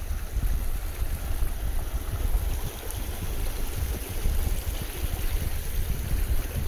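Wind buffeting the microphone in an uneven rumble, over the steady rush of a mountain stream.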